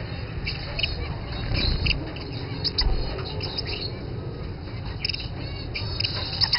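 Young Gouldian finches chirping: short, high calls coming in quick clusters, over a steady low rumble.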